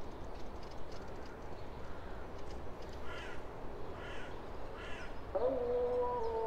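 A crow cawing three times, about a second apart, over a steady low background rumble. Near the end a louder held tone with several steady pitches sets in and carries on.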